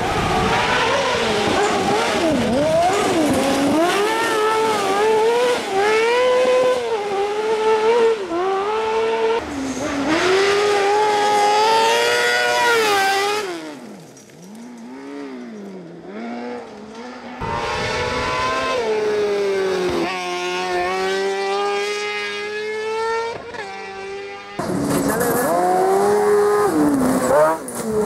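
Kart cross buggies' high-revving 600cc motorcycle engines, revving up to about 16,000 rpm and shifting, the pitch climbing and dropping again and again over several passes. The sound drops to a quieter stretch a little before halfway.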